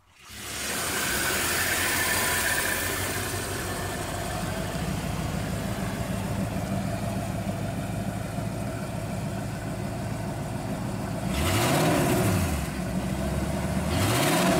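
AMC Matador coupe's engine idling steadily, then blipped twice near the end, the pitch rising and falling back with each rev.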